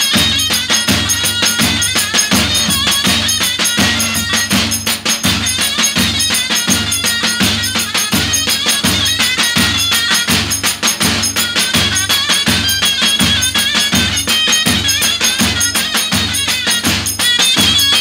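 Zurna playing a folk dance melody over two davul drums beating a steady, even rhythm.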